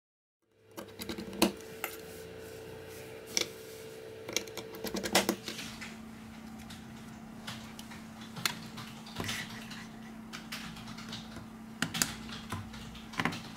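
Clicks and taps of a small screwdriver and of the Samsung Galaxy S5's metal midframe and plastic display parts being worked and handled, beginning about half a second in. A steady hum runs underneath and drops lower about five seconds in.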